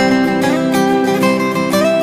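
Background music of plucked acoustic guitar, with a note sliding up near the end.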